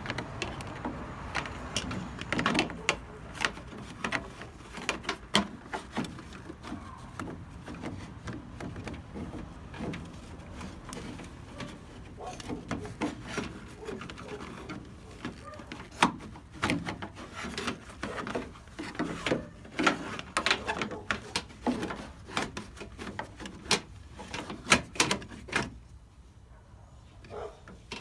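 Irregular plastic clicks, knocks and rustling as gloved hands work in a car's engine bay behind the headlight housing, moving the washer fluid reservoir neck aside to reach and fit an LED headlight bulb. The handling noise grows quieter near the end.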